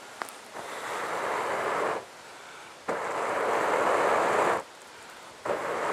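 A man blowing hard into smouldering coals in a hollow burned into a wooden stump, to fan them into flame and keep the bowl burning out: three long rushes of breath about a second and a half each, with a fourth starting near the end. A small click just after the start.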